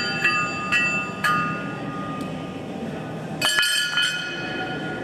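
Sharp metallic clinks and clanks, each ringing briefly: a few in the first second and a half, then a cluster about three and a half seconds in. They come from the metal access hatch and panels of an aircraft as a person climbs out through them, over a steady low hum.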